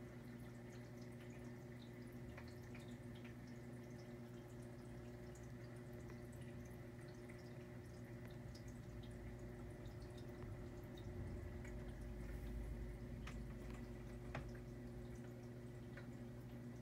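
Hang-on-back aquarium filter running: a steady low electric hum with water trickling and dripping from its outflow.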